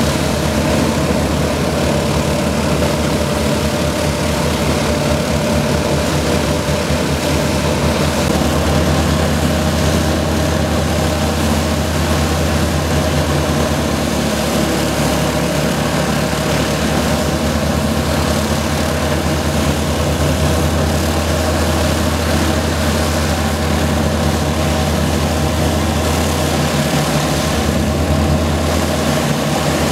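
Two Rolls-Royce Griffon V12 piston engines of an Avro Shackleton MR3 running steadily on the ground, their contra-rotating propellers turning, while the other two engines stand stopped.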